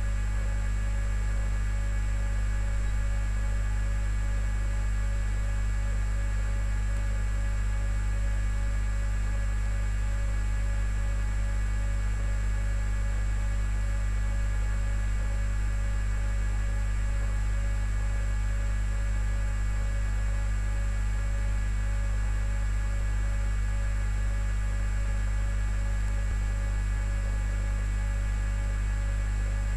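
A steady low electrical hum with fainter steady higher tones above it.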